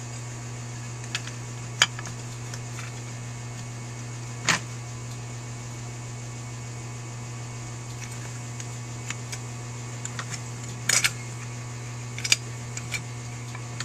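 Holley 4000 carburetor castings being handled and fitted together by hand, giving a handful of short sharp clicks and knocks of metal on metal, over a steady low hum.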